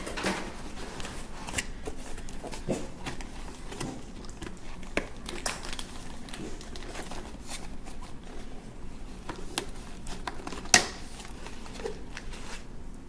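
Cardboard and paper packaging being handled and opened by hand: rustling and crinkling with scattered light clicks, and one sharper snap near the end.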